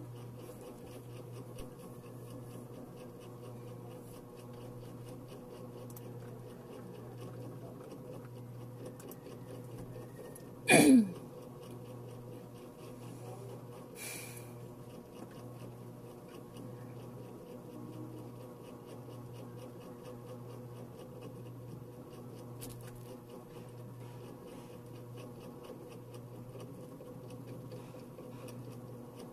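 Quiet room tone with a low hum that pulses evenly throughout. About eleven seconds in there is one short, loud sweep falling in pitch, and a few seconds later a brief soft hiss.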